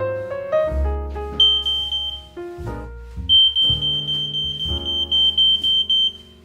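Smoke alarm sounding its test alarm, a shrill pulsing beep in two stretches, the second nearly three seconds long, over background piano music.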